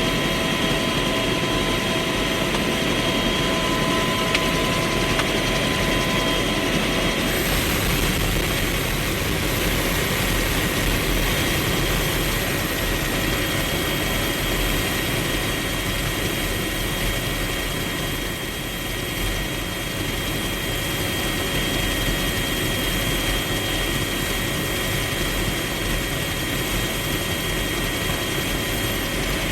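Bell UH-1 Huey helicopter heard from inside the cabin, running steadily: a dense engine and rotor noise with several high, steady turbine whine tones over it. The lower whine tones shift about seven seconds in, and the noise dips briefly around eighteen seconds.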